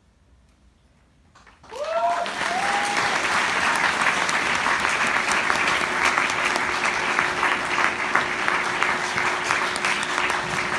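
Audience applause. After about a second and a half of hush, clapping breaks out suddenly, with a couple of whooping cheers about two seconds in, then carries on steadily.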